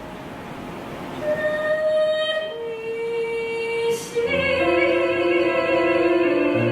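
Background classical music: slow melody in long held notes, some with vibrato, growing fuller after about four seconds.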